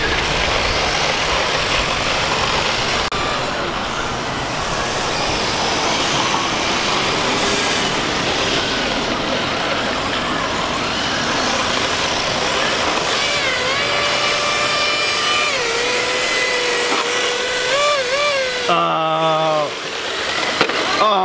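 Radio-controlled drift cars running on asphalt: a steady hiss of noise, with whines that rise and fall in pitch in the later part.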